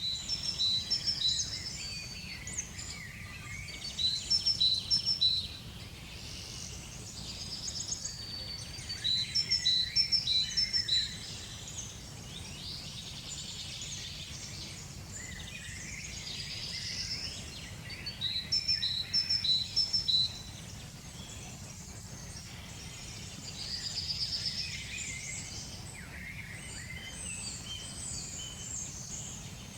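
Small birds chirping and singing in repeated bursts of quick, high notes every few seconds, over a steady low rumble.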